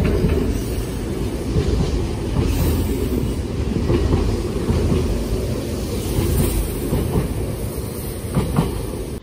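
Senboku Rapid Railway 5000-series electric train pulling slowly out of the platform. Its wheels click over the rail joints above a steady running rumble, with two sharper clacks near the end.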